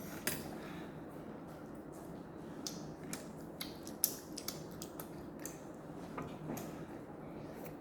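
Scattered light clicks and taps of eating utensils against bowls during a meal, over a steady low background hum.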